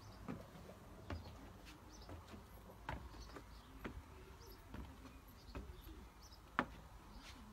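Footsteps going up decking steps, a sharp knock with each tread roughly once a second, the loudest near the end. Faint bird chirps in the background.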